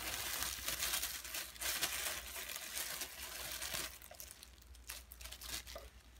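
Thin plastic wrapping crinkling and rustling as a power cord is pulled out of its plastic bag by hand. It is dense for about the first four seconds, then dies down to a few light handling clicks.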